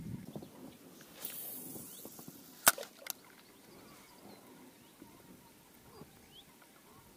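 A spinning-rod cast: the line hisses off the reel for under a second, then comes a single sharp click with a smaller one just after. Faint ticks follow.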